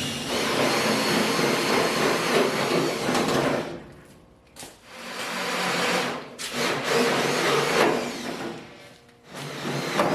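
Electric power drill boring holes through the steel sheet of a truck hood, running in three spells with short pauses between them.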